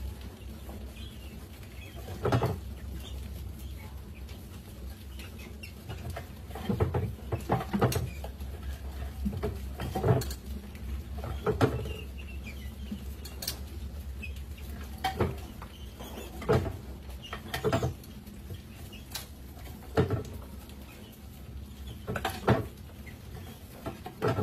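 Rats swarming over a glass-walled tipping-platform trap, with sharp knocks every second or two as its wooden see-saw flaps tip and rats drop into the glass tank, over a steady low hum.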